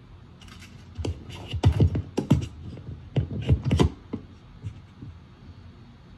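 Handling noise on a phone's microphone: a quick run of loud thumps and rubbing knocks as the phone is grabbed and swung around. It lasts about three seconds, starting about a second in, and a few lighter taps follow.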